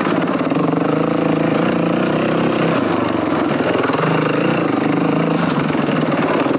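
Yamaha WR450 dirt bike's single-cylinder four-stroke engine running on a trail ride, its revs rising and falling as the rider works the throttle.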